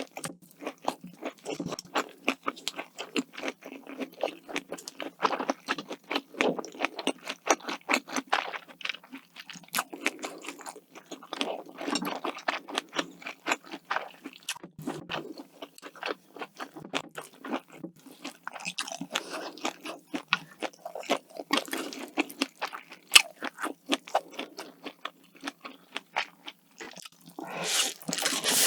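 Close-miked eating: rapid crunchy chewing with many sharp clicks and crunches, with a louder noisy swell near the end.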